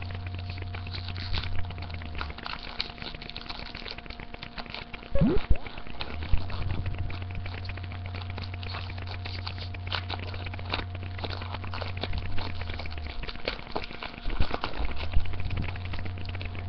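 Crinkling and crackling of a foil Pokémon booster pack wrapper and the cards inside being handled, with scattered small clicks and a couple of louder knocks about five seconds in. A steady low hum sits under it part of the time.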